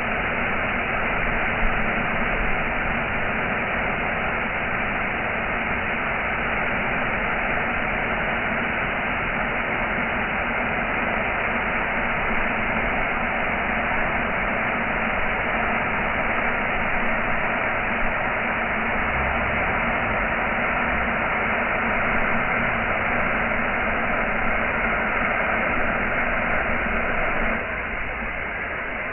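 Waterfall: a steady, even noise of falling water, dropping a little in level near the end.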